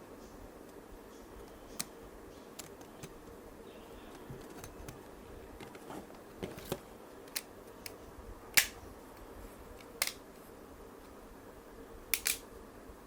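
Scattered sharp clicks and taps of small parts and tools being handled, the loudest about two-thirds of the way in, then another and a quick double click near the end, over a faint steady hum.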